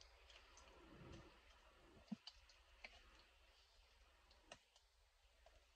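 Near silence broken by a few faint, scattered clicks from kitchen shears snipping through raw chicken breast.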